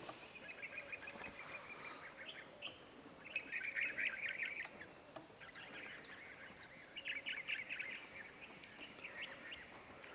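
Birds chattering: several bursts of rapid, high-pitched notes, loudest around three to five seconds in and again around seven seconds in.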